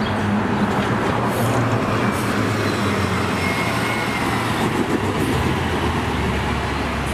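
Loud, steady vehicle engine and road rumble with a low hum, starting and stopping abruptly like an inserted sound effect.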